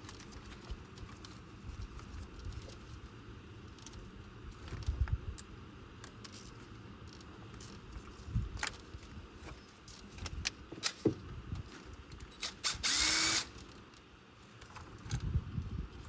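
A cordless power driver runs once for under a second, its motor pitch rising as it stops, about three-quarters of the way through. Around it are light clicks and knocks of tools being handled in the engine bay.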